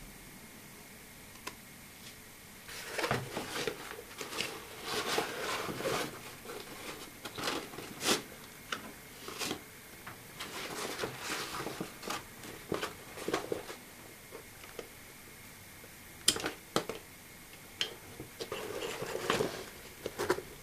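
Fabric of a camouflage military bag rustling and scraping as it is handled, its straps pulled. Several sharp clicks come from its plastic buckles and fasteners.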